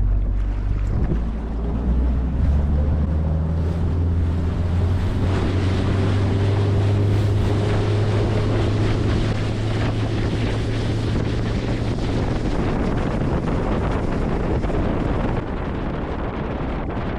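Boat's outboard motor opened up to full throttle and running hard at speed, with wind rushing over the microphone. The engine note climbs right at the start, holds steady, and the sound drops a little about fifteen seconds in.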